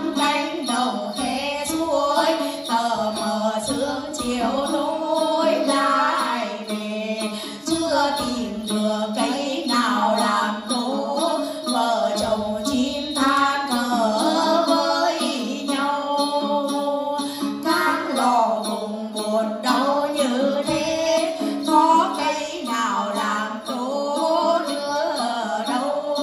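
Hát then, Tày traditional singing: several female voices singing together through microphones in a gliding melody, accompanied by a plucked đàn tính, a long-necked gourd lute.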